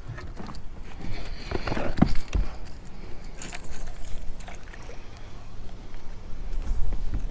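Fishing gear being handled in a jon boat: scattered clicks and rustling, with a thump about two seconds in, over a steady low rumble.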